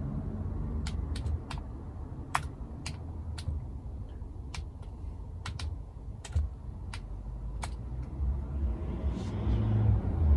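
Computer keyboard keys typed slowly and unevenly: a dozen or so sharp, separate clicks spread over several seconds, over a steady low rumble.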